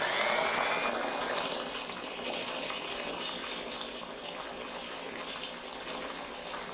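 Stand mixer running on high, its beater churning whipped cream in a plastic-wrapped steel bowl into butter, with a steady wet sloshing and splattering. The motor whine rises in the first second, then the sound settles slightly quieter.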